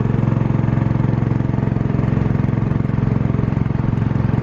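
Small boat's motor running steadily at an even pace.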